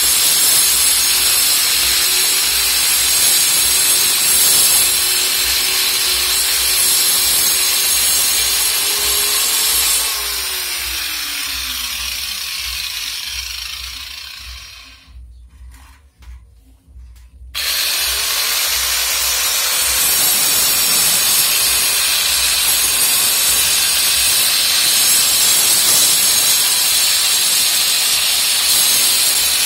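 Electric angle grinder with a cutting disc cutting a channel into a brick wall for a water pipe: gritty grinding over the motor's steady whine. About ten seconds in the disc comes out of the brick and the motor is switched off, its whine falling as it spins down. After a short pause it is switched on again, the whine rising to speed, and it goes back to cutting the brick.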